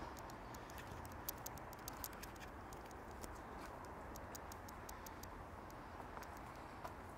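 Quiet outdoor ambience: a steady low background hush with many faint, irregular high-pitched ticks and clicks, thickest in the first few seconds and thinning out toward the end.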